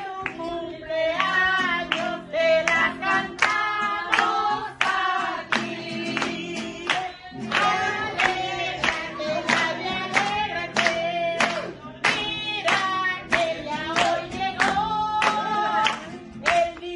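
A group of women singing together and clapping along in a steady rhythm.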